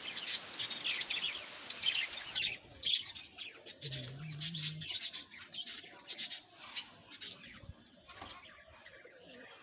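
Pigeon wings flapping in a run of quick, irregular bursts, with high chirps among them, dying down about seven seconds in.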